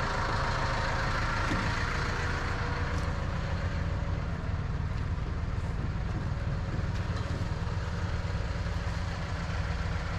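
Crane truck's engine idling steadily, with a hiss that dies away over the first couple of seconds.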